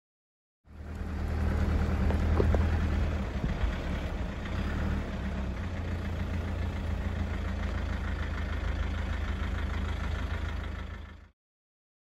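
Four-wheel drive's engine running steadily, heard from a camera mounted on the vehicle, with a few light knocks a couple of seconds in. The sound fades in about a second in and fades out near the end.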